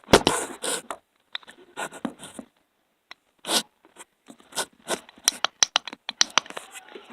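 Irregular scraping and rustling bursts, like things being handled close to the microphone, then a quick run of sharp clicks in the second half.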